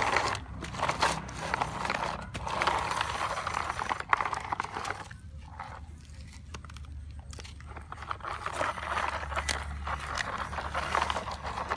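Plastic toy dump truck pushed by hand over gritty dirt, its wheels and body scraping and crunching on the grit and small stones, in irregular bursts with a quieter stretch in the middle while its sand load is tipped out.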